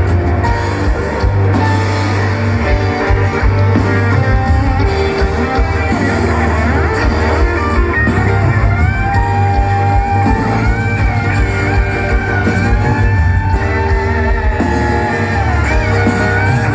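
Live band playing an instrumental passage of a pop-rock ballad: a guitar carries a gliding melody over a steady bass.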